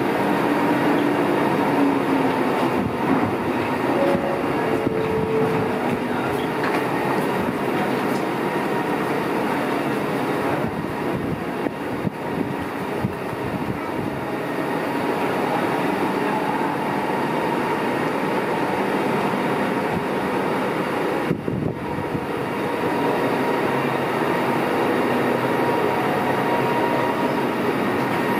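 Kelana Jaya Line light-rail train at a station platform, with the steady rumble and hum of the train. A low whine falls slightly in pitch over the first couple of seconds as the train comes to a halt.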